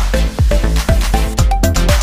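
Background music with a steady beat and a melody of short notes.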